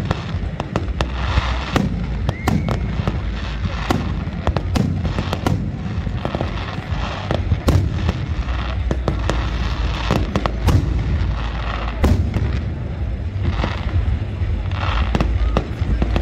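Aerial fireworks display: a dense, irregular run of bangs and crackling shell bursts, several a second at times, over a continuous low rumble.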